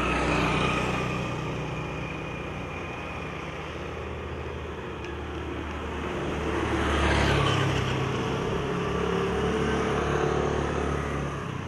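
Motor scooters passing on a road, each one's small engine hum and tyre hiss swelling as it comes near and fading as it goes. The loudest passes come near the start and about seven seconds in, and another swells near the end.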